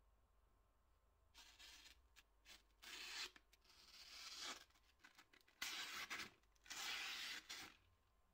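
A freshly sharpened Solingen pocket-knife blade slicing through paper, about six quick rasping cuts, each lasting under a second.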